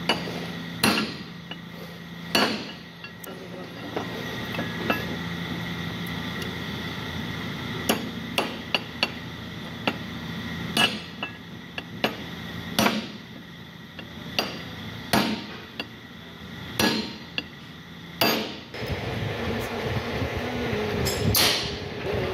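Sharp metal-on-metal hammer blows, about a dozen spaced one to three seconds apart, driving a brass bush into the worn slide-pin bore of a brake caliper bracket set on a steel block. The bush is there to take up the play of a loose caliper pin. Near the end a machine starts running with a steady whine.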